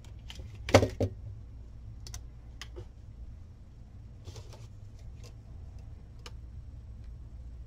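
Small clicks and taps from handling hand tools and a small plastic case, with two sharper knocks about a second in and scattered lighter ticks after.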